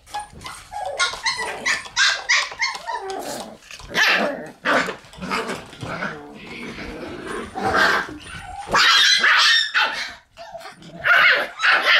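Shiba Inu puppies barking over and over in short, high calls.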